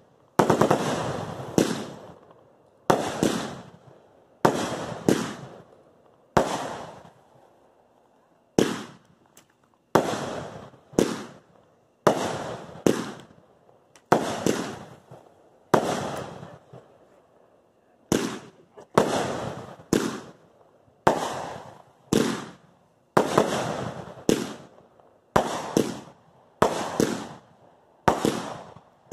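Consumer 1.4G aerial fireworks going off in a long series of sharp bangs, roughly one a second, each trailing off in a short echo, with a brief lull about halfway through.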